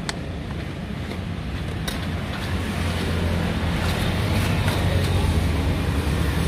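A motor engine running steadily with a low rumble that grows slowly louder over the last few seconds, with a couple of light clicks near the start.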